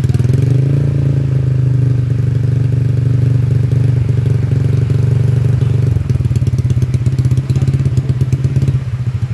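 Honda Vario 150 scooter's single-cylinder engine, bored up to a 59 mm piston, running through a CLD Racing C3 round aftermarket silencer with a half baffle. It idles, and just under a second in the throttle is raised and held at a steady higher rev for about five seconds. It then drops back to a lumpy, pulsing idle.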